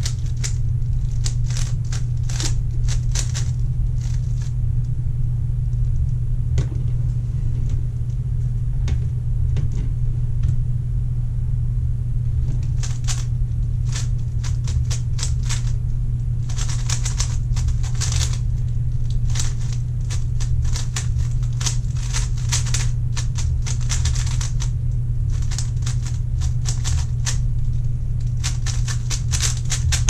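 A 3x3 speedcube being turned fast by hand: clattering runs of quick plastic clicks from the layers snapping round. The clicks are sparse for the first dozen seconds, then come in dense rapid bursts through the rest of the solve. A steady low hum runs underneath.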